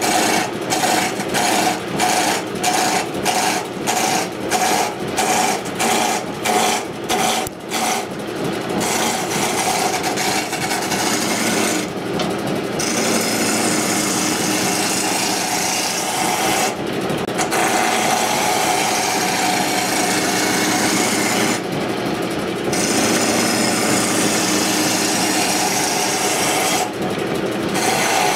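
A woodturning gouge cutting a spinning wood blank on a lathe, roughing a square blank round, with a rasping scrape. For the first eight seconds the cutting comes in short strokes about twice a second. After that it runs in long continuous passes, broken by brief pauses about every five seconds.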